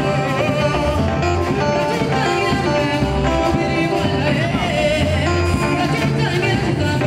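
Background music: a song with singing over instruments and a steady bass line.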